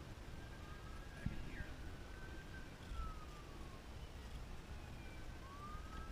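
Faint, distant emergency siren wailing, its pitch slowly rising and falling, over a low rumble, with a light knock about a second in.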